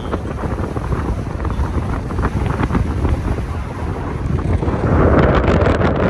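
Wind buffeting the microphone of a moving camera, a loud, steady low rumble that swells louder about five seconds in.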